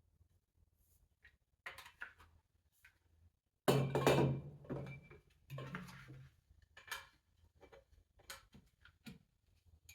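Chair legs and plastic foot pads of a baby dining chair knocking and clicking as they are handled and pushed together, with a louder clatter almost four seconds in followed by scattered smaller clicks.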